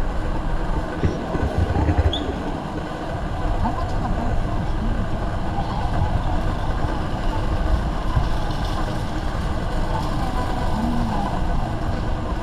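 Busy warehouse-store ambience: a steady low rumble of shopping trolleys rolling over the concrete floor under the murmur of shoppers' voices.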